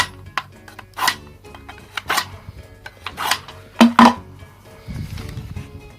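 Kitchen knife drawn through a pull-through sharpener: about five short scraping strokes, roughly one a second, over background music.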